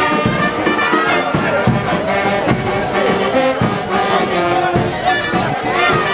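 Brass band music playing, trumpets and trombones over a steady beat.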